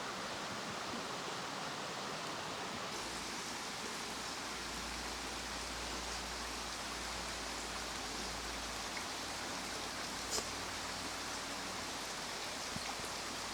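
Steady rush of running stream water, an even hiss that grows brighter about three seconds in.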